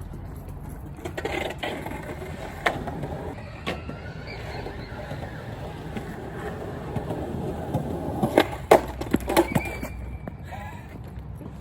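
Skateboard wheels rolling over pavement with a steady grinding rumble. The board clacks sharply a couple of times early on, then gives a quick run of loud clacks and knocks about eight to ten seconds in.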